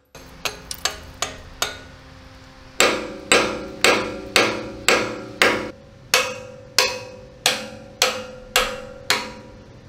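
Hammer blows on the steel vision-block housing of a StuG III, knocking at the damaged armoured glass block to get it out. It starts with a few lighter taps, then about three seconds in settles into a steady run of hard strikes about two a second, each with a ringing metallic tone.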